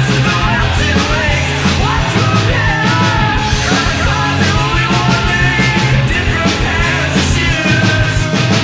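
Punk rock song with a full band playing loud and a shouted, yelled lead vocal over the drums.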